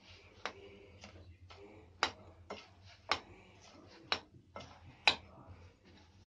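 Metal spoon mixing a stiff grated potato and cornflour mixture in a glass bowl: soft scraping, with a sharp clink of the spoon against the glass about once a second, five times.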